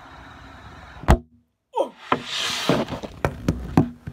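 Camera being handled and set on a tabletop: a sharp knock about a second in, a brief dead silence, then rubbing and rustling against the device and two more knocks near the end.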